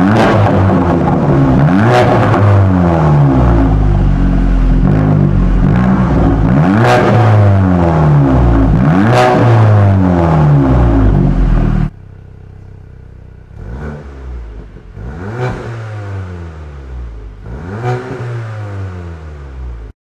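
Audi A7 (C8) engine revved repeatedly through an aftermarket titanium mid-pipe and valved catback exhaust with the valve open, each rev climbing and falling back. About twelve seconds in the sound drops suddenly to a much quieter level, and three smaller revs follow.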